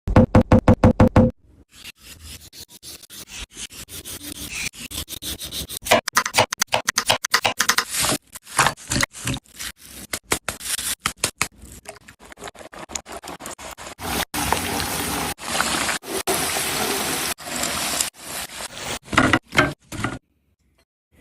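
Kitchen sounds of potato snack preparation, cut together in many quick short clips: scraping and knocking, with a steady hiss for a few seconds past the middle.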